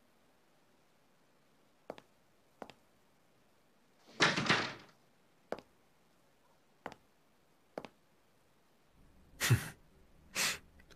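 Quiet room with a few soft, widely spaced taps like slow footsteps on a floor, and a brief louder swish about four seconds in and two more near the end.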